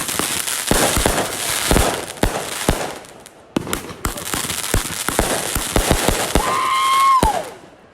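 Fireworks going off: a fast, irregular run of sharp bangs and pops over crackling hiss, with a short lull about three seconds in. Near the end a held whistling tone drops in pitch, and then the noise fades away.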